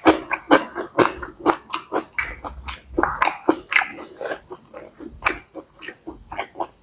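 Close-miked eating of pad see ew, stir-fried wide rice noodles with pork and crisp Chinese kale: wet chewing and smacking mouth sounds, several a second, irregular.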